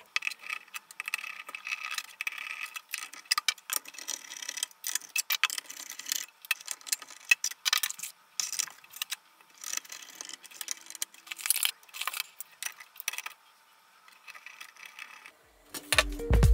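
Irregular light clicks, rattles and rustling of wires and plastic connectors being handled inside a sheet-metal electrical cabinet as stepper driver modules are unplugged and removed. Background music comes in near the end.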